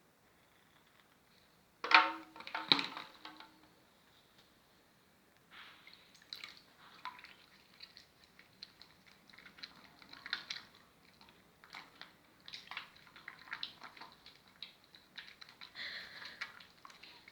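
Wet bar soap being lathered, making irregular squishy, crackling foam sounds in clusters from about five seconds in. A brief, louder knock with a short ringing tone about two seconds in.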